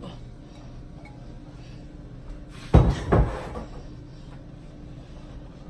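Two heavy knocks about half a second apart, kitchenware knocked against the pot as the last of the onions are tipped in, over a low steady hum.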